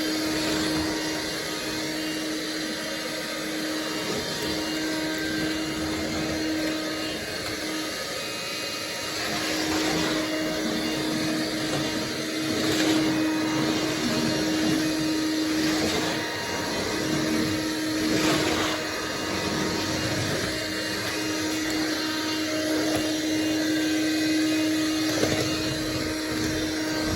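Oreck Electrikbroom Quickstick cordless stick vacuum running steadily on a hard floor, a constant motor hum under its suction noise, with a few brief louder swells as it is pushed about.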